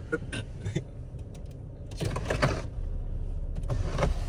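Clicks and taps of a Range Rover Velar's cabin controls. About three seconds in, a steady low hum sets in and keeps going.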